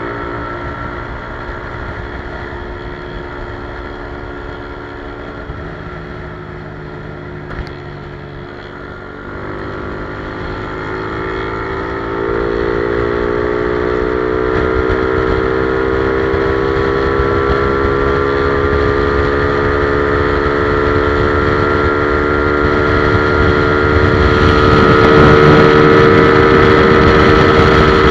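Modified Yamaha LC motorcycle's single-cylinder engine running at held-open throttle, its note dipping briefly about nine seconds in, then climbing steadily in pitch and loudness as the bike gains speed.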